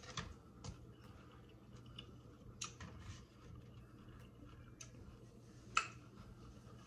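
Faint scattered clicks and light taps of crisp hard taco shells being handled and set upright on a wooden cutting board, with one sharper click near the end.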